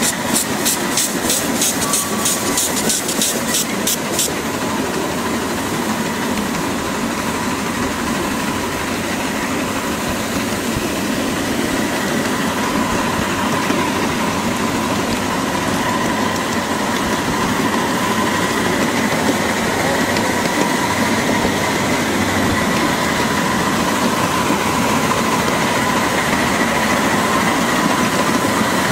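Miniature ride-on live-steam train running along its track: the steady noise of the locomotive and cars, with a thin steady squeal that wavers slightly in pitch. A quick run of sharp clicks, about four a second, comes in the first four seconds.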